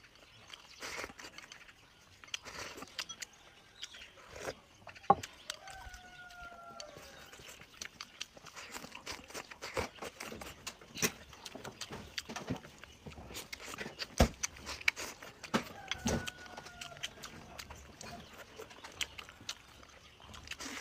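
Close-up eating sounds: chopsticks clicking against the bowl and chewing, in many short irregular clicks, the sharpest about five seconds in. A farm animal, plausibly a goat, gives a short falling call twice in the background.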